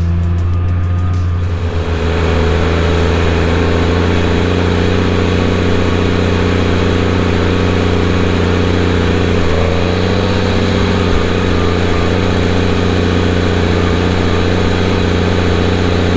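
Case IH tractor engine running steadily under load, pulling a field cultivator. It makes a constant low drone with mechanical noise on top.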